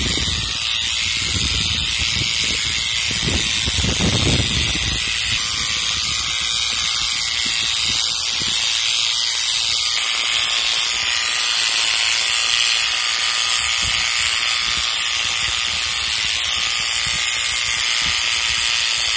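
Corded electric hair clipper running steadily as it cuts through a dog's thick, matted coat, with a few dull low bumps in the first few seconds.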